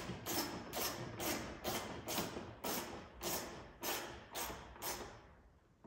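Quarter-inch ratchet tightening a 13 mm headlight bolt: a short burst of clicks on each back-swing, about two strokes a second, stopping about five seconds in once the bolt is snug.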